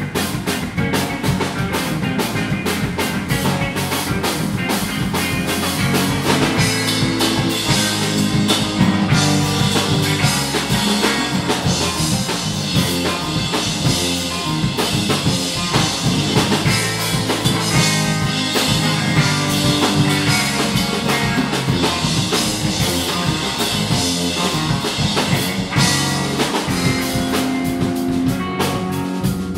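Live rock band playing: a drum kit keeping a steady beat under electric bass, electric guitar and keyboard.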